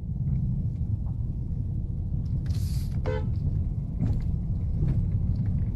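Steady low rumble of a Mercedes-AMG car's engine and tyres heard from inside the cabin while driving, with a brief higher pitched sound about three seconds in.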